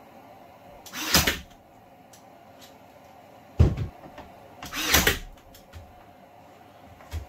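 Work noise from fitting a wooden window side casing: two brief rushing noises about a second in and about five seconds in, a sharp knock between them, and a small thud near the end.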